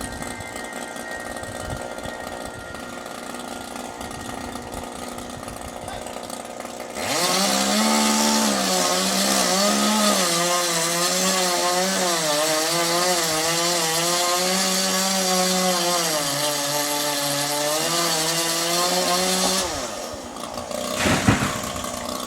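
Chainsaw cutting into a palm trunk. It runs quietly at first, then about seven seconds in it goes to full throttle for about twelve seconds, its pitch wavering and sagging under load, and drops back. A sharp, loud knock comes near the end.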